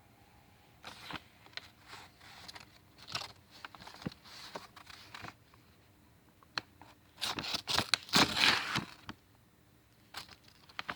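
Karambit blade slicing and tearing through a sheet of damp paper in a paper sharpness test, in irregular rustling bursts that grow louder after about seven seconds. The cut is not clean, which the owner puts down to the paper being damp.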